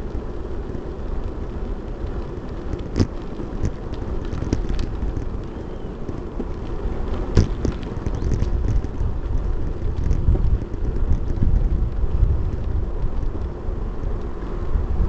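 Wind buffeting a small action camera's microphone while mountain biking, heard as a steady low rumble, with scattered clicks and knocks.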